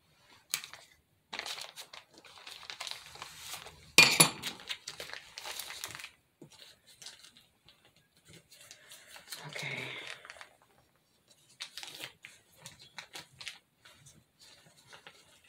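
Plastic piping bag crinkling and rustling in the hands as it is squeezed and handled, with one sharp knock about four seconds in.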